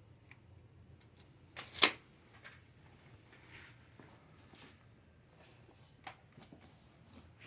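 Scattered light clicks and knocks of plastic drain pipe and tools being handled, with one louder, sharp clatter about two seconds in.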